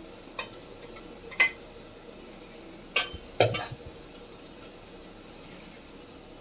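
A metal spoon clinking against stainless-steel utensils, a steel bowl and an idli mould plate, while idli batter is scooped and spooned into the mould. Four separate clinks, the loudest two close together about three seconds in.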